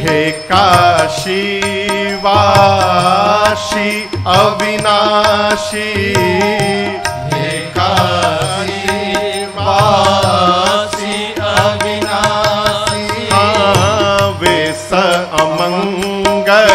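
Devotional Hindu bhajan music to Shiva: a wavering melodic line in phrases of about two seconds over a steady held drone, with percussion underneath.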